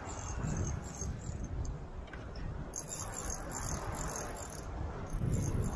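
Spinning reel's drag giving line to a hooked tarpon: a fast, high-pitched clicking buzz that pulses and fades for a moment about two seconds in, over a steady low rumble.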